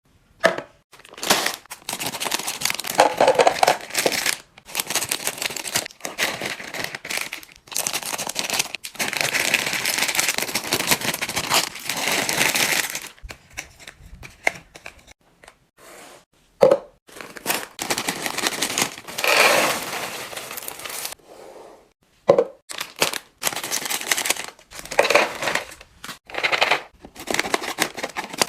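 Plastic snack packaging being crinkled and torn open in many short bursts of rustling, with abrupt stops between them.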